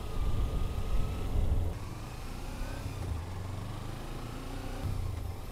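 Motorcycle engine running as the bike rides along, with steady low rumble, its pitch rising as it accelerates about two seconds in.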